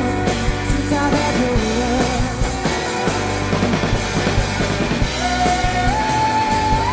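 Live band playing: violin, electric guitars and a drum kit over a steady beat. A lead line slides in pitch, ending on long held high notes that step up and back down.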